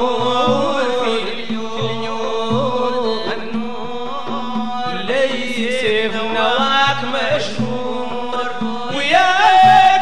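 Sudanese madeeh, Sufi praise singing: voices chant a bending melody over short low drum strokes.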